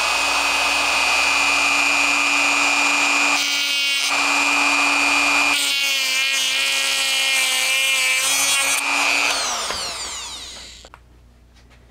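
Dremel rotary tool with a cutoff disc running at a steady high whine as it cuts through a metal rail of HO-scale flex track. The tone wavers and shifts while the disc bites into the rail in the middle. About nine seconds in it is switched off and spins down with a falling whine.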